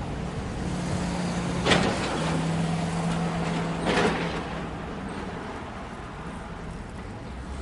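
City street traffic: vehicle engines running with a steady low hum, broken by two short, sharp sounds about two seconds apart, the first the louder.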